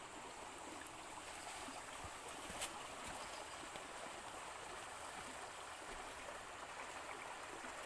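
Steady rushing hiss of running water, with one short click about two and a half seconds in.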